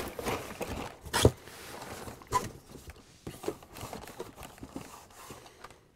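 Cardboard shipping case and plastic blister-packed Hot Wheels cards being handled as a card is pulled from the top row: irregular rustling and scraping with scattered clacks, the sharpest knock about a second in.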